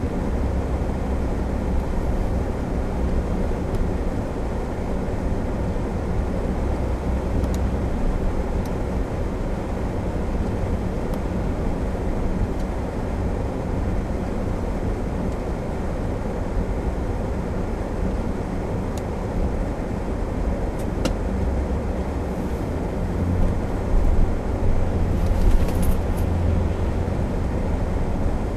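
Steady low rumble of engine and tyre noise heard inside a moving car's cabin, with a short louder swell near the end.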